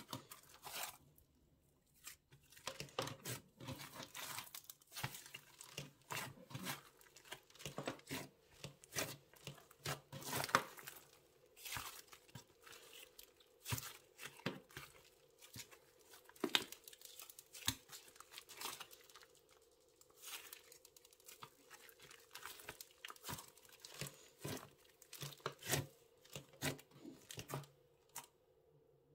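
Slime being squished and kneaded by hand, giving dense, irregular crackling pops and crinkles, over a faint steady hum.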